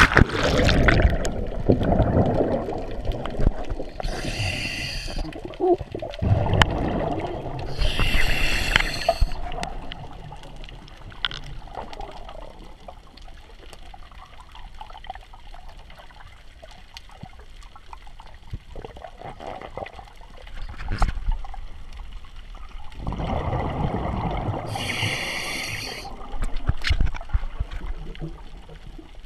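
A diver breathing underwater from a Spare Air mini scuba cylinder, heard through a camera's waterproof housing: three short hisses from its regulator on inhaling, and gurgling rushes of exhaled bubbles. Churning water is loudest at the start, as he goes under.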